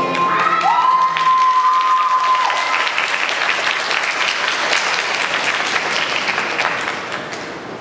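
Audience applauding after a dance performance ends, a high held tone sounding over the first two seconds or so; the clapping dies down near the end.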